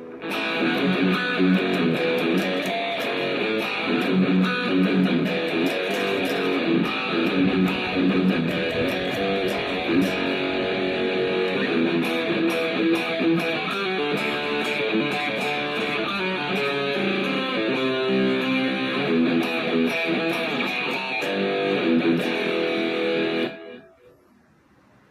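Electric guitar played through an Engl Savage 120 valve amplifier head, a run of riffs and chords in a tone demonstration, stopping abruptly near the end.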